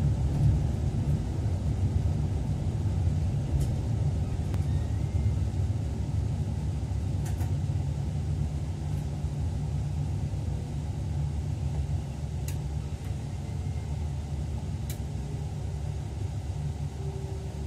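Steady low rumble of an electric train running along the line, heard inside the driver's cab, easing off slightly as it goes. A few faint sharp clicks are scattered through it.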